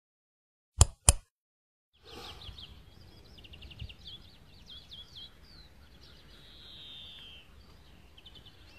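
Two sharp clicks close together, a mouse-click sound effect, then open-air ambience with small songbirds chirping and trilling, including one longer falling note.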